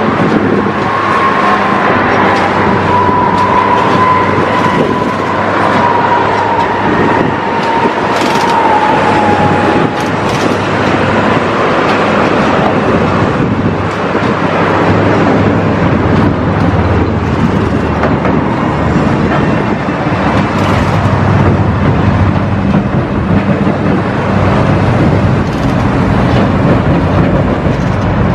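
Yellow rail-mounted track-laying machine running on the newly laid rails: a loud, steady mechanical din with a low hum. A thin high whine sounds through the first ten seconds or so, sinking slightly in pitch, and a couple of sharp metallic clicks come around eight and ten seconds in.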